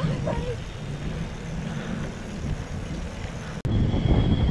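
Wind rumbling on the camera's microphone, with road noise, while riding a mountain bike at speed. The sound cuts abruptly about three and a half seconds in, and the low rumble is louder after the cut.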